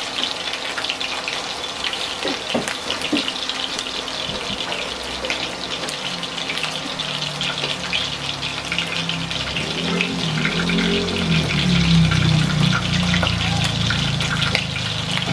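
Meatballs shallow-frying in hot oil in a glass pan: a steady, crackling sizzle. A lower droning sound comes in after about ten seconds and grows louder.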